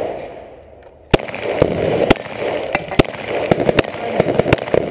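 Glock 34 9mm pistol shots, several sharp reports about a second apart, over a steady noisy rumble.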